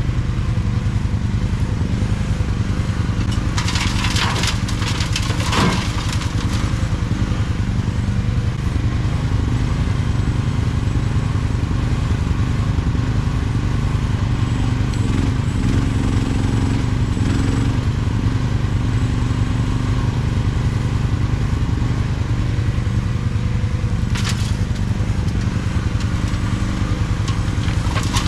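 Mini excavator engine running steadily under work. Gravel and stones crunch and clatter against the bucket in a burst about four to six seconds in, and again briefly near the end.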